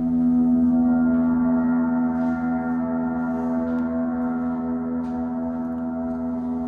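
Sound-healing gongs and singing bowls ringing together in long, steady overlapping tones. A fresh strike lands right at the start, and the ring then slowly fades.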